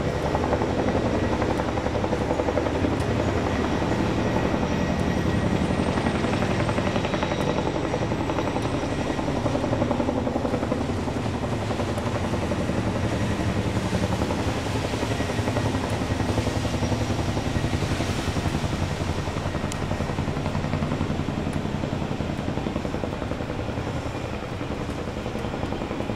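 CH-47 Chinook tandem-rotor helicopter taking off and climbing away, its twin rotors beating steadily; the sound eases a little near the end as it moves off.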